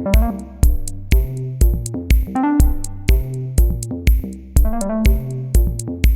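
Background electronic music with a steady beat of about two kick-drum hits a second, hi-hat ticks and synthesizer notes.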